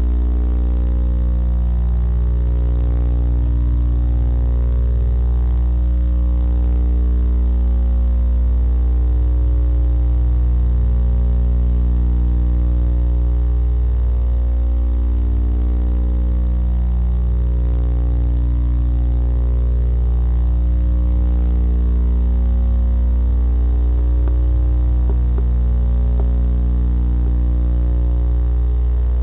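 Loud, steady electrical mains hum with many overtones, slowly wavering.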